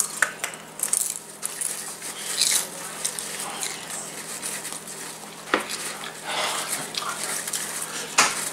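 Popcorn rustling as a hand rummages in a plastic bowl, with chewing and a few sharp knocks against the bowl.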